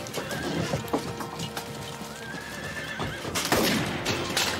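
Battle-scene soundtrack: a dramatic music score with horses whinnying and hooves clattering, then several loud sharp impacts about three and a half seconds in.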